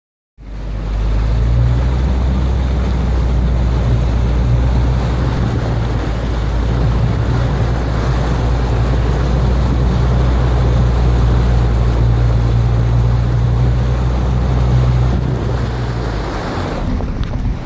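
A car driving through deep floodwater, with water rushing and splashing against its side and the engine humming low and steady underneath. The hum stops near the end.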